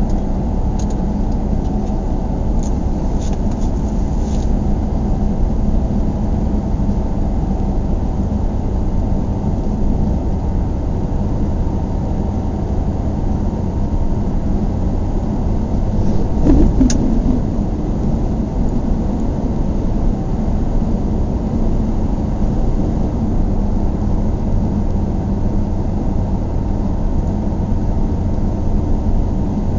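Car driving slowly on town streets: steady engine and tyre rumble, with a brief louder bump about halfway through.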